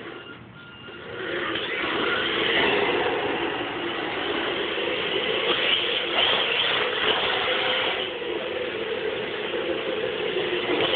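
RC drift car's electric motor and drivetrain gears whining steadily as it drives on carpet, after a brief lull in the first second.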